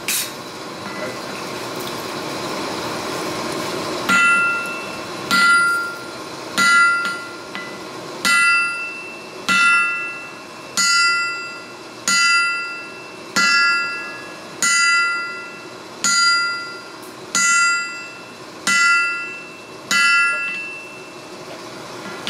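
Hand hammer striking red-hot steel on an anvil, forging an axe head. After a steady hiss, thirteen ringing blows start about four seconds in, one about every 1.3 seconds.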